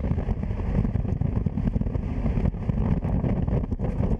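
A motorcycle riding along, heard mostly as heavy, steady wind buffeting on the microphone of a camera mounted on the bike, with road and engine noise underneath.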